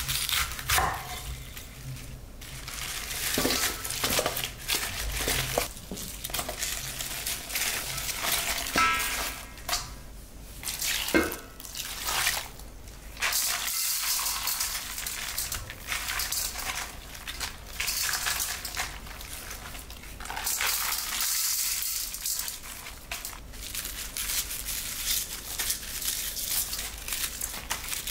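Knife cutting crisp napa cabbage on a wooden cutting board, then cabbage leaves crackling and rustling as they are handled and tossed with salt in a stainless steel bowl, in an irregular run of crisp sounds.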